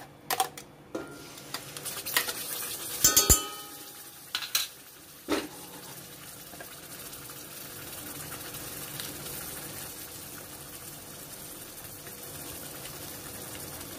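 Ground tomato gravy paste poured from a steel mixer jar into hot butter and spices in a steel kadhai and scraped out with a silicone spatula: the jar and spatula knock against the pan several times in the first five seconds, loudest about three seconds in, then the gravy sizzles steadily in the pan.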